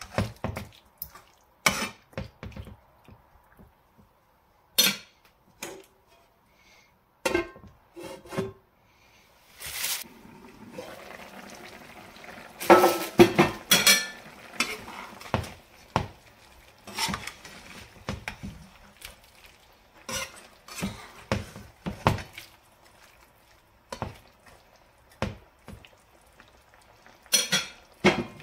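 A metal spoon stirring chicken in a non-stick frying pan, with scattered clinks and scrapes against the pan. About a third of the way in, a steady sizzle from the simmering gravy comes up for several seconds.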